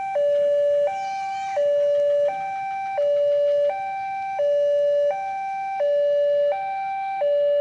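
Electronic warning alarm of a railway level crossing sounding while the barriers are down, alternating steadily between a higher and a lower tone, each held for about 0.7 s.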